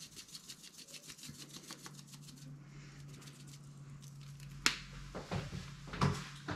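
Spice grinder being twisted over salad bowls, a fast run of fine clicks as seasoning is ground onto the vegetables. It is followed by a sharp click and a couple of dull knocks near the end.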